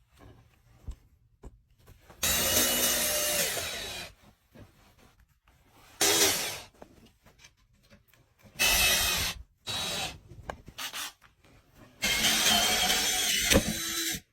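A power tool running in four short bursts of one to two seconds each, with a whine through each burst.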